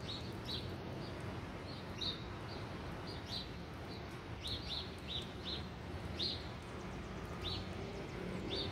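Small birds chirping: short high chirps repeated irregularly, about one or two a second, over a low steady background rumble.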